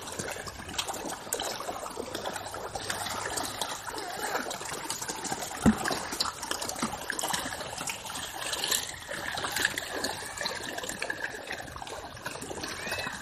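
A dense shoal of small fish thrashing at the water's surface, making a steady patter of small splashes and trickling water. One sharp knock stands out about five and a half seconds in.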